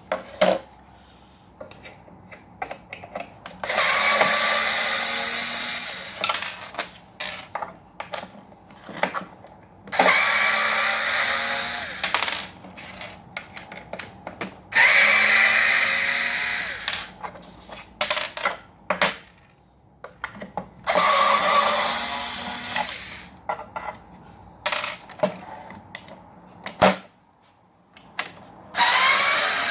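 Electric drill-driver running in five bursts of about two to three seconds each, its motor pitch sliding during each run, with small knocks and clicks between the bursts.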